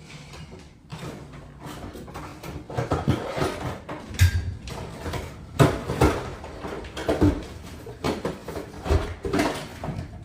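Irregular knocks, thumps and clatter from objects being handled and set down, with no motor running.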